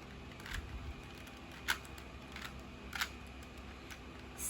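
Plastic 3x3 Rubik's cube being turned by hand, its layers clicking and clacking a few times as the moves of a trigger algorithm are made.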